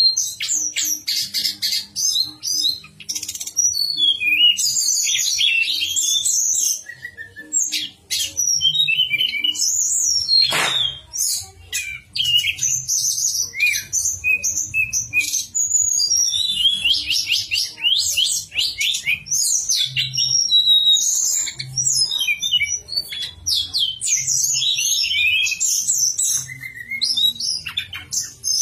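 Tledekan gunung (Sunda robin) singing a fast, continuous run of high chirps, trills and flute-like whistles, with one long falling whistle about ten seconds in. A faint low hum runs underneath.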